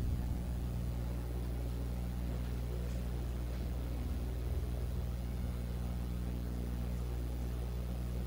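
Steady low electrical hum with faint room noise.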